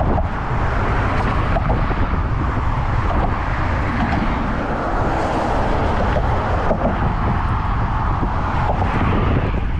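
Steady road traffic passing close by, with strong wind rumbling on the microphone.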